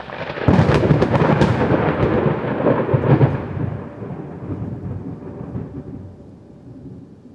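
A thunderclap: a sharp crack about half a second in, then a rolling rumble that slowly fades away.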